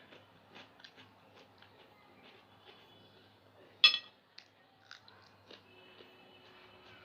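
Close-up mouth sounds of someone eating rice with chicken curry and fish bhuna: soft wet chewing and lip smacks in small scattered clicks, with one sharp, much louder click just under four seconds in.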